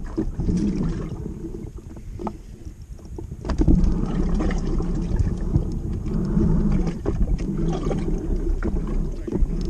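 Wind rumbling on the microphone and water lapping against a kayak's hull, growing louder about three and a half seconds in, with a few light knocks.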